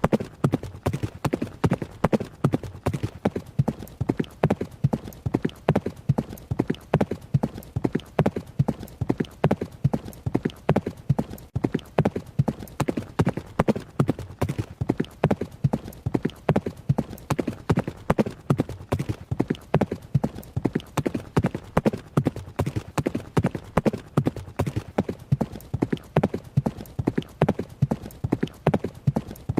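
Horse hooves striking the ground at a run: a fast, even clip-clop of several hoof strikes a second that keeps a steady pace and level.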